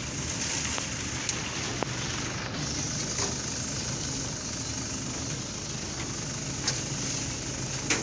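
John Deere combine harvester running steadily while being driven, with a few sharp clicks and knocks in the running noise.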